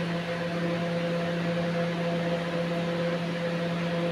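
A steady droning hum with several constant tones over a background hiss, unchanging throughout.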